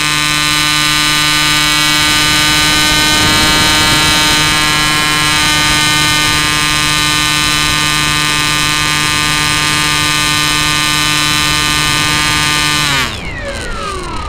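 Electric motor and propeller of a Bixler 2 RC plane, heard through the onboard camera's microphone, running at a steady high whine under power. About 13 seconds in the motor winds down and the whine slides steeply down in pitch and gets quieter.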